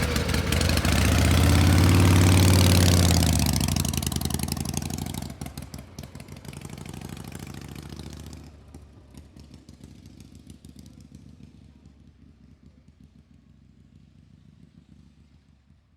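An engine revs up and back down, loudest a couple of seconds in. The sound then drops in two steps and dies away to a faint tail.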